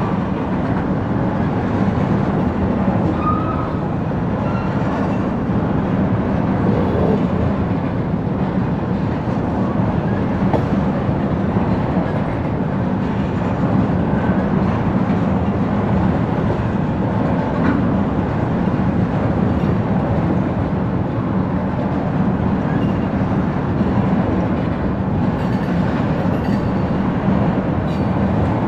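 Freight train of oil tank cars rolling steadily past, a continuous rumble of wheels on rail.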